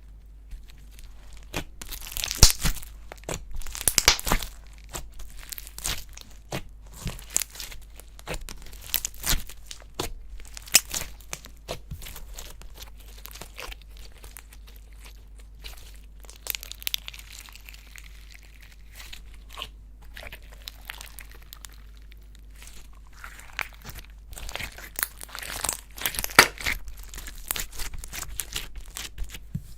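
Clay slime being kneaded and stretched by hand, making irregular sticky crackles and sharp pops. The crackling is busiest a couple of seconds in and again near the end.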